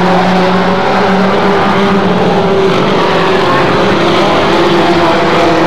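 Several race pickup trucks' engines running hard on a short oval, a loud, steady drone of overlapping engine notes with pitches shifting slightly as the trucks circle.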